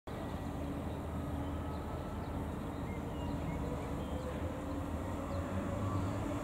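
Red double-deck regional train approaching, heard as a steady low rumble and hum that grows slowly louder.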